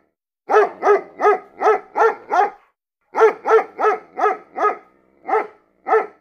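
A dog barking in quick runs: six sharp barks, a short pause, five more, then two single barks near the end.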